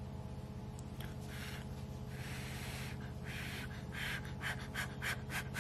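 A person blowing on a scalding-hot bite of food to cool it: a few long breaths, then a quick run of short puffs, about four a second, near the end. A steady low hum runs underneath.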